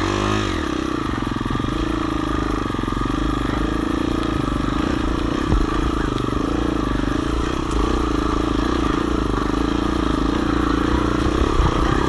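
Motorcycle engine revving up in the first half second, then running at fairly steady revs under load with the pitch wavering slightly.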